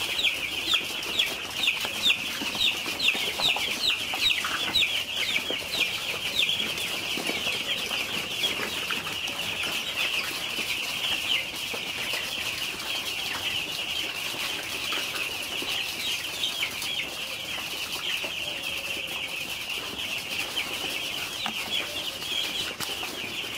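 A large flock of young chicks peeping continuously, many short high chirps overlapping; the peeps are sharper and louder for the first several seconds, then settle into a steady chatter.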